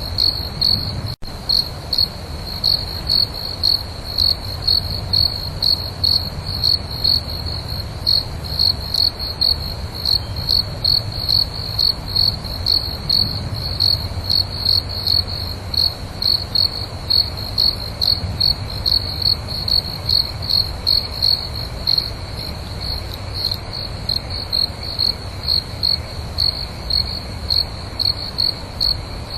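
Night insects chirping in a steady, even rhythm of about two high-pitched chirps a second, over a low background rumble. There is a split-second dropout about a second in.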